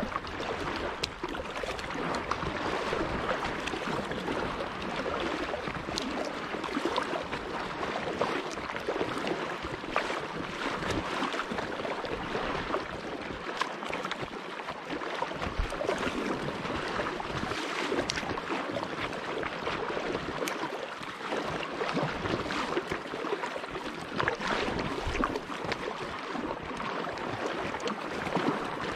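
Lake water lapping and splashing along the hull of a moving kayak, a continuous wash broken by many small sharp splashes and drips.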